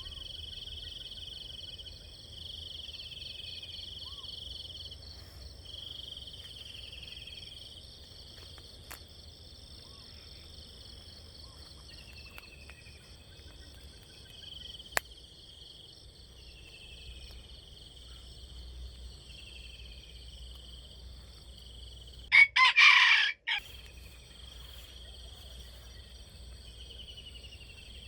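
A rooster crowing once, loud, for about a second some twenty-two seconds in. Underneath runs a steady high-pitched outdoor chorus with short falling bird calls every couple of seconds.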